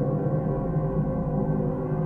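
Eerie haunted-house drone: several steady, ringing tones layered over a low rumble, holding level without a break.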